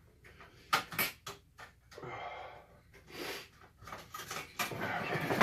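A man breathing hard and hissing through his mouth in several breathy gusts, reacting to the burn of ghost pepper chips. A few sharp clicks come about a second in.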